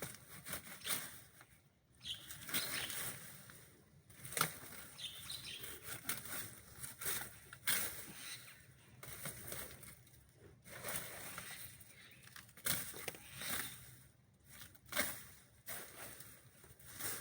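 Irregular rustling and swishing of thick grass and brush being cleared, in uneven strokes with short pauses between them.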